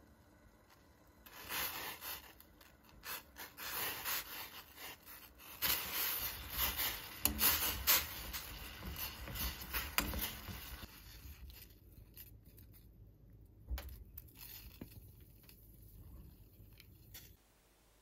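Lemons handled from a wicker basket and put into a stainless steel pot of hot water on a gas stove to blanch them: rubbing and rustling, then a run of knocks and splashes about six to ten seconds in, followed by a quieter spell with a single knock.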